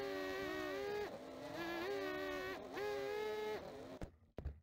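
FPV quadcopter's four brushless motors and propellers whining at a steady pitch that dips and rises several times with the throttle. Just after four seconds the whine stops abruptly, followed by a few sharp clicks.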